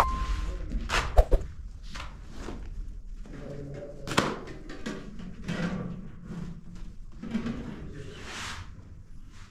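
Room sounds of a few light knocks and clatters, the sharpest a little over a second in and about four seconds in. A chime dies away just at the start.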